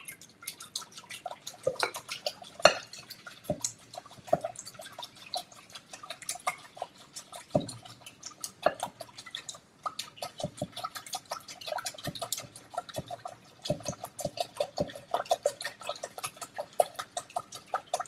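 Wire whisk beating a thin wet cake batter in a glass mixing bowl, the wires clicking and tapping against the glass in quick, uneven strokes.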